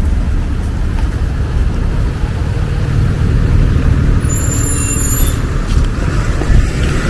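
Road traffic on a city street: a steady, heavy low rumble of large vehicles running close by, with a brief high-pitched squeal about four seconds in.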